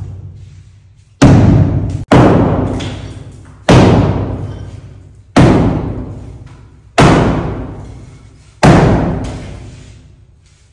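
Sledgehammer striking a masonry wall that is being demolished: six heavy blows, about one every second and a half, each ringing out and fading over a second or more in the bare room.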